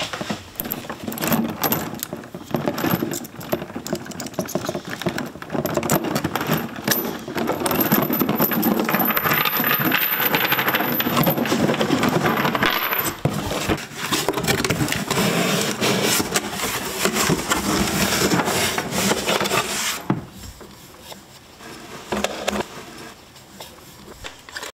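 A steel chain rattling and clinking as it is unlocked and pulled off a cardboard box, with a padlock being handled. The clatter is dense and loud for most of the time, then gives way to quieter handling for the last few seconds.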